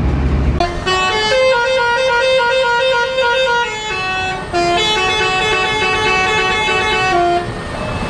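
A tour bus's basuri 'telolet' musical horn playing a stepping multi-note tune, in two phrases with a short break just before halfway. It starts after a brief low rumble of traffic.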